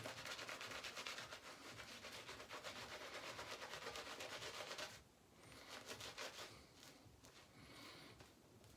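Shaving brush swishing quickly through a wet, watery lather of shaving soap, a soft rapid rubbing that drops off about five seconds in to fainter, slower strokes. The lather is still thin and over-hydrated, not yet pasty.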